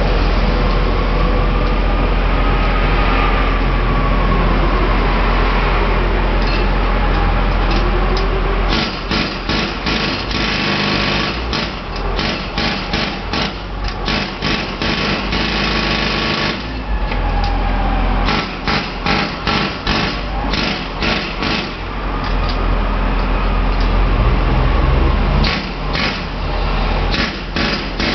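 Pneumatic jackhammer (air hammer) breaking pavement in three long bursts of rapid hammering: the first about nine seconds in, then two more after short pauses. Between bursts a steady engine drone runs, typical of the air compressor that powers the hammer.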